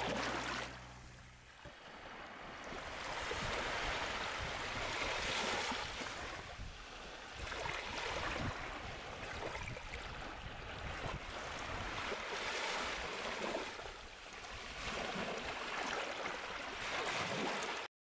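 Sea surf: small waves breaking and washing in, the hiss swelling and falling every few seconds, cut off suddenly near the end. A music track fades out in the first second or so.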